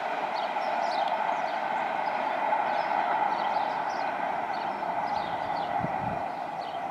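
Diesel drone of an approaching HST's Class 43 power car, steady and slowly fading toward the end. Birds chirp over it, and there is a brief low thud about six seconds in.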